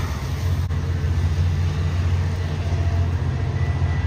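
An engine running with a steady low rumble.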